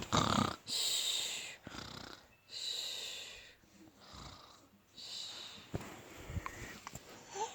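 A toddler fake-snoring: a string of exaggerated, breathy snorting breaths, about one every second or two.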